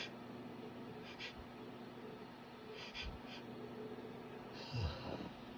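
Short nasal sniffs and breaths from a man with a head cold, several brief sniffs followed by a longer breath near the end, over a steady low hum.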